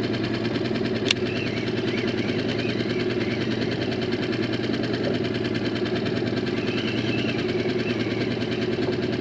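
A steady, fast mechanical rattle over a low hum, unbroken throughout, with one sharp click about a second in.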